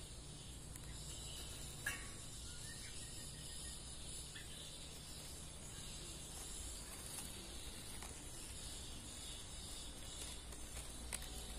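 Faint outdoor ambience: a steady high insect drone, with a couple of brief clicks.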